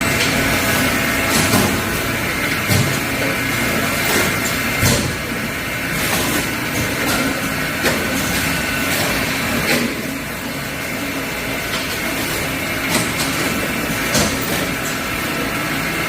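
Bean sprout weighing and packing machinery running: a steady, dense machine hum with several steady tones, broken every few seconds by short knocks and clanks.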